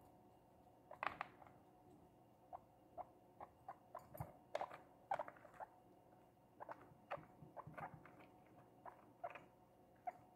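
A guinea pig moving about its cage on wood pellet bedding: faint, irregular small clicks and crunches that come in a few clusters, over a faint steady hum.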